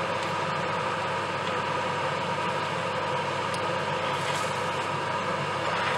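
Whole octopus searing on high heat in a stainless steel pot with no water added, a steady sizzle over a steady hum.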